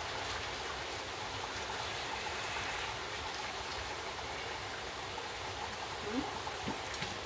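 Chicken frying in a pan with butter, a steady sizzle.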